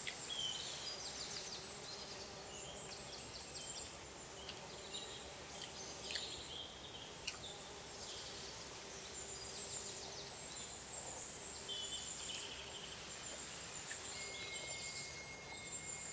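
Small birds chirping and twittering in short repeated trills over a faint steady high insect buzz; a thin steady tone comes in near the end.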